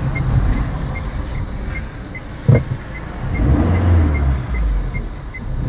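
Car running, a steady low rumble, with a single knock about two and a half seconds in and a stronger stretch of rumble soon after.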